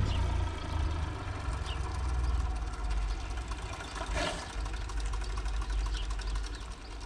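IMT tractor diesel engine running steadily with a low rumble, growing fainter toward the end.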